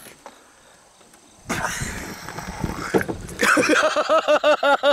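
A man makes a breathy, rasping 'pwaa' noise with his hands cupped over his face, lasting about two seconds about a second and a half in. Loud rhythmic laughter follows, about four 'ha's a second.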